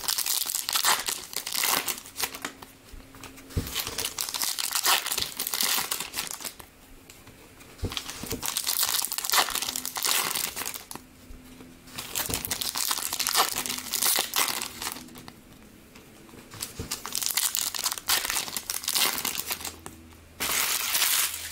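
Foil trading-card pack wrappers crinkling and tearing as they are opened by hand, in bursts with short pauses between packs.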